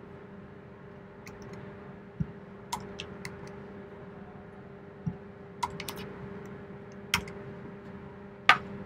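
Computer keyboard keys tapped in scattered, irregular strokes, the loudest click coming near the end, over a faint steady hum.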